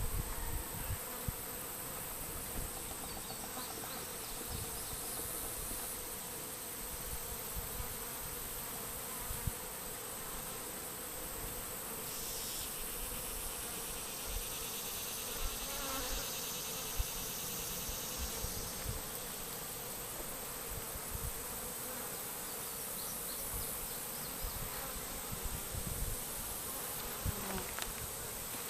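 Honey bee swarm buzzing steadily around an open hive box, a constant hum, with a few soft low bumps scattered through it.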